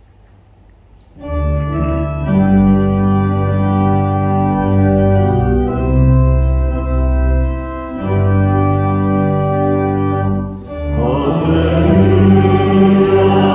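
Organ starts about a second in, playing sustained chords as the introduction to a hymn; the congregation's singing joins near the end.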